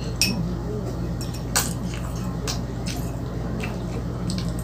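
Close-up eating sounds of spaghetti carbonara being slurped and chewed, with a few sharp clicks of a fork against a small ceramic bowl, over a steady low hum.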